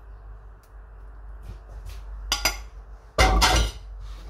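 Kitchenware clinking: a few light clinks of utensils, then a louder clatter of metal cookware about three seconds in.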